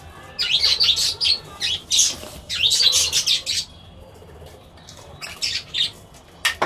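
Pet budgerigars squawking and chattering in quick, sharp calls. They come in a dense run for the first few seconds, go quiet for a moment, then return with a few more calls near the end.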